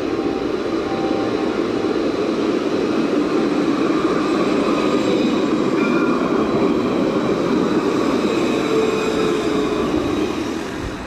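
Alstom Citadis tram passing close by on its rails: a steady rumble of wheels and running gear that swells as it goes past and eases near the end, with a few faint short squeals.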